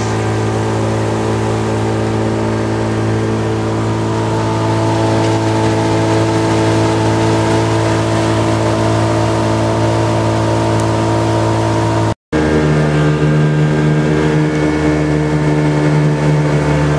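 Pontoon boat's outboard motor running steadily under way, a little louder from about four seconds in. A brief dropout comes about twelve seconds in, after which the engine hum sits at a different pitch.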